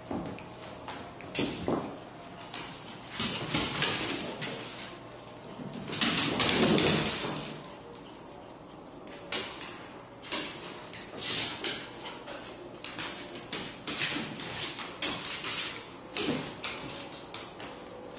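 Two dogs play-wrestling on a hardwood floor: scuffling, bumps and claws scrabbling on the wood in short, irregular bursts, the loudest about six seconds in.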